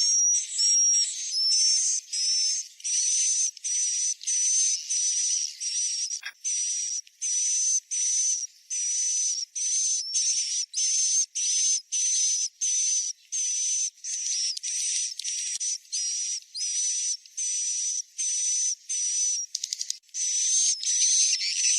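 Swiftlet roosting call (suara inap) played as a house lure: short, hissing chirps with a thin high whistle running through each, repeated about two a second with no pauses.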